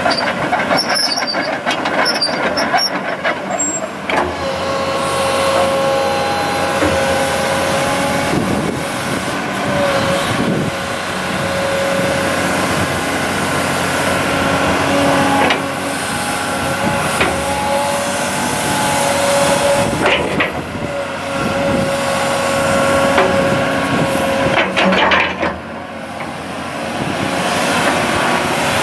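2001 Komatsu PC200PU-6LE excavator running, its 5.9 L six-cylinder turbo diesel engine heard with a hissing noise and, from about five seconds in, a steady whine that breaks off briefly a couple of times.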